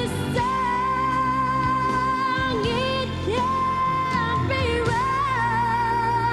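Background music with a held melody line that slides and wavers in pitch over steady low notes.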